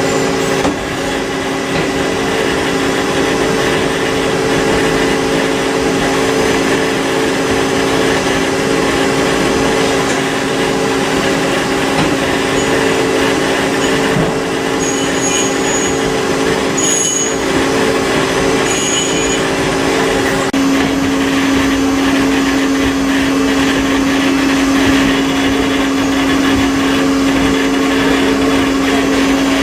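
CNC multitasking lathe running a deburring pass with a back-side burr cutter: a steady machine noise with several whining tones, which change to one lower tone about two-thirds of the way through. A few short high chirps come around the middle.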